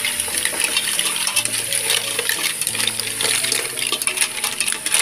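Mussel shells clattering and clinking against each other and the stainless steel pot as they are stirred with a long spoon: rapid, irregular clicks.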